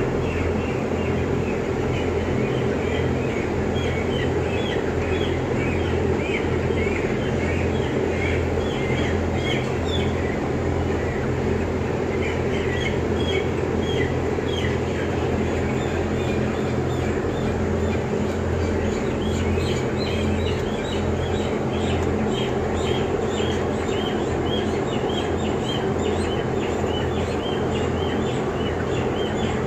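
Steady low hum of running blower fans and electrics in a closed chicken house, under a constant chorus of many short, high peeping chirps from a flock of broiler chickens.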